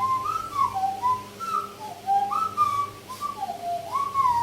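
Nose flute (nose whistle) playing a tune: a single pure whistling tone that steps and slides between short notes, with swoops up and down between them.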